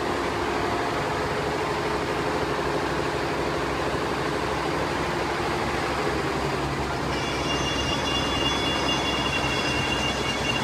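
GEMSY 9-needle, 16-head flat embroidery machine running, a steady fast mechanical clatter of the heads stitching. About seven seconds in, a steady high-pitched whine joins it.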